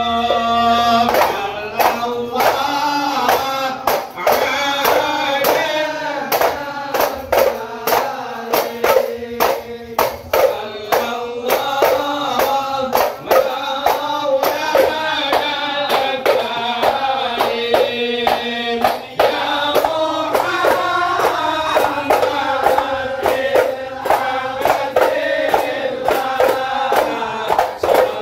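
Men chanting sholawat together in Ishari hadrah style, accompanied by terbang frame drums and hand claps keeping a steady, fast rhythm of sharp strikes.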